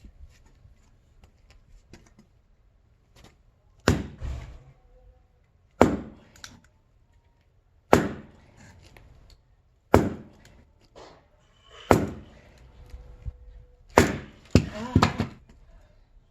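Axe chopping into firewood: about seven sharp chops, roughly two seconds apart, starting about four seconds in, with two quick blows close together near the end.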